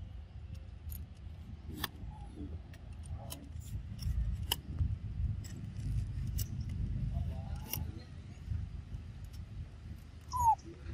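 Outdoor ambience: a low rumble that swells in the middle, scattered light clicks, and one short, high, falling chirp near the end.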